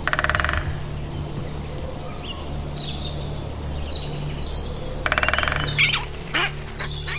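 Great spotted woodpecker drumming on a tree trunk: two rapid rolls about half a second long, one at the start and another about five seconds in. Other birds chirp in between.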